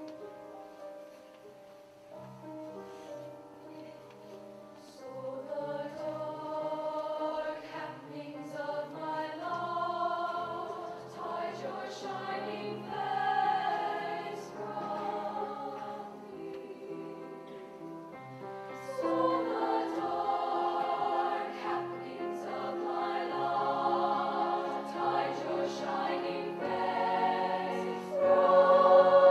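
Treble choir of young women singing a slow piece with piano accompaniment. It starts soft, swells louder about six seconds in, and grows again around twenty seconds and near the end.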